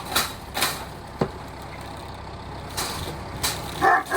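Farm tractor engine running steadily while pulling a gate post out of the ground, with a few short sharp noises over it. A dog starts barking near the end.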